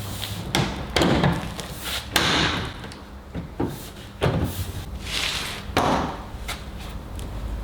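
A new plastic bumper trim strip being pressed and knocked into place on a car's rear bumper. There is a series of irregular knocks and thuds with scraping and rustling between them.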